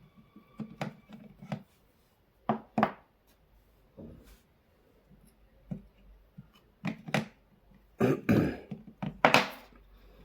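Irregular clicks and knocks of tools and a drill battery pack being handled on a workbench while a battery cell is desoldered and replaced. There are about a dozen short strikes, the loudest about 2.5 s in and near the end.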